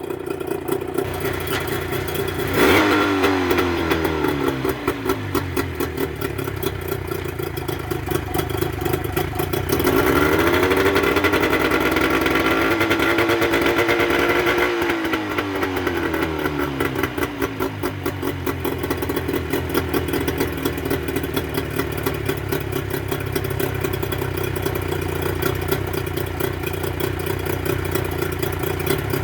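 Mercury 25 hp two-stroke outboard motor, fitted with Boyesen power reeds, running: a quick blip of the throttle about two and a half seconds in that falls back, then revs raised and held for about five seconds from about ten seconds in before dropping back to a steady idle.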